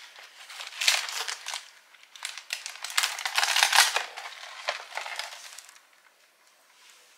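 Crinkling and rustling of snack packaging, a cardboard box with a plastic inner bag handled and turned over. It comes in short bouts, heaviest in the middle, and dies away near the end.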